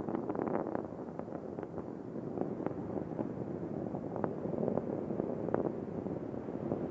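Space Shuttle Discovery's solid rocket boosters and main engines during ascent, heard as a steady rumbling roar with frequent sharp crackles.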